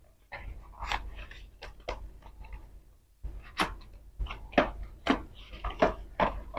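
A small cardboard product box being handled and opened by hand: irregular light clicks, scrapes and rustles of the cardboard flaps and insert.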